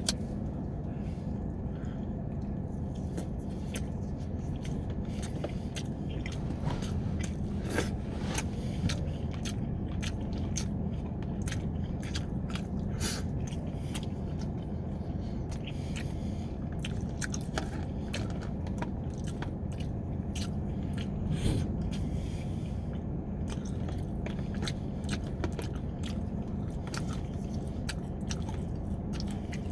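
Close-miked eating: chewing and biting with many short wet mouth clicks scattered throughout, over a steady low hum.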